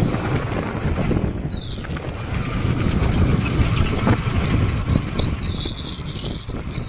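Wind rumbling over the microphone of a motorcycle on the move, a Yamaha R15 V3, with the bike's running and road noise underneath.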